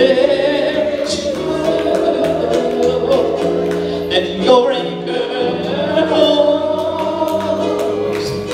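Gospel singing: a woman's voice sung into a microphone over steady held chords of accompaniment.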